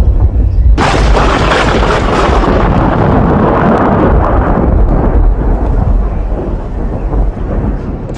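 A loud thunderclap strikes about a second in, then rolls and fades away over several seconds. It is heard over a steady low rumble of wind on the microphone.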